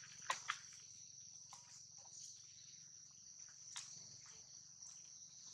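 Steady high-pitched chorus of insects, faint, with a few sharp clicks about half a second in and once more near the four-second mark.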